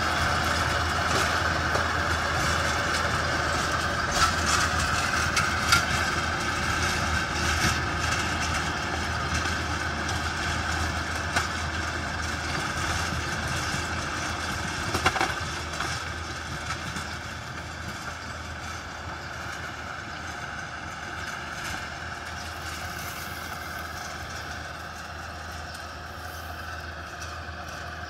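Yanmar YT490A tractor's diesel engine running steadily while its rotary tiller works the soil, with a few short knocks. It grows fainter in the second half as the tractor moves away.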